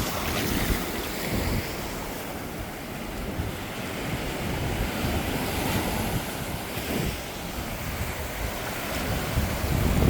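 Caribbean surf breaking and washing up the beach, with wind buffeting the microphone in low gusts.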